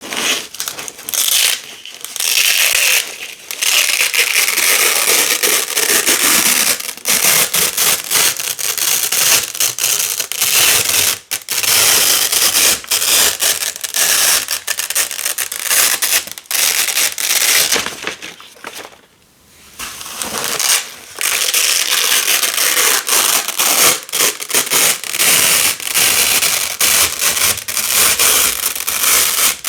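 Hook-and-loop (Velcro) tape, black hook strip against colored loop tape, being peeled apart over and over with a crunchy, crackling tearing sound, with brief breaks and one longer pause about two-thirds of the way through.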